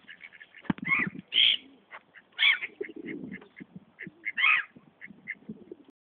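Mallard ducks quacking on the water: a string of separate quacks, the loudest about a second and a half, two and a half and four and a half seconds in, with softer calls between. A single brief knock just under a second in.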